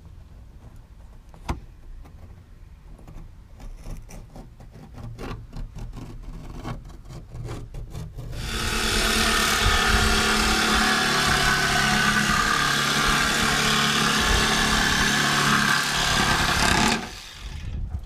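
Light handling clicks and knocks, then about eight seconds in a jigsaw starts and runs steadily, cutting through a wooden panel, and stops abruptly about a second before the end.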